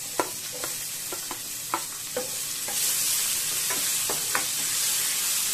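Chopped onion sizzling as it drops into hot oil in a ceramic-coated pan, with a spatula scraping it off a plate and stirring it, tapping and clicking against plate and pan. The sizzle grows louder about three seconds in.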